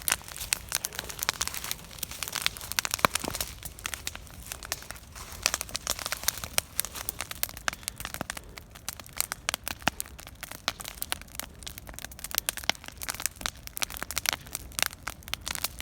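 Wood campfire burning hard, crackling with irregular sharp pops over a low steady rumble.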